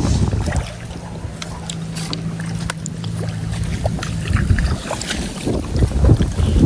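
Wind buffeting the microphone outdoors, with a steady low hum for a few seconds in the middle and scattered small clicks.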